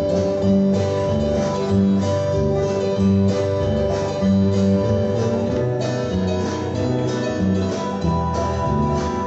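Live country gospel band playing an instrumental break with no singing: acoustic guitar strumming a steady beat over a moving upright bass line.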